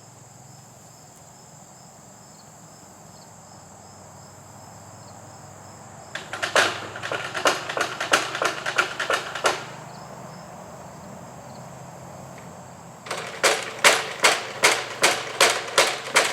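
A hand saw cutting into a tree limb in two runs of quick strokes, about three a second, weakening the limb before it splits off. Insects buzz steadily throughout.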